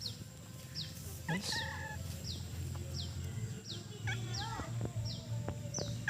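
A bird repeating a short, high chirp that falls in pitch, very evenly about every three quarters of a second. A few lower, wavering animal calls come in about a second in and again around four seconds in.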